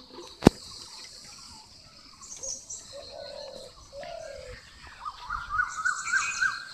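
Birds calling: a dove gives two short low coos a little past the middle, and small birds chirp in quick runs near the end. A single sharp click sounds about half a second in.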